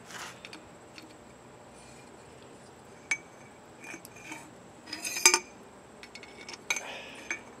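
Short metallic clinks and rattles as pliers and the damper rod knock against the inside of a 1970 Honda CB450 fork tube while the damper is worked out. The loudest cluster of clinks comes about five seconds in, with more near the end.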